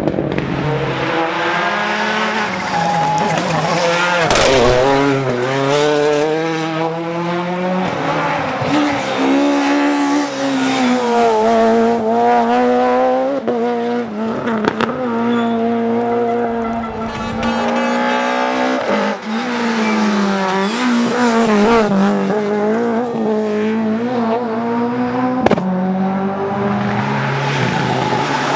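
Rally cars driven hard on a stage, engines revving up and dropping back again and again through gear changes and lifts. There is a sharp crack near the end.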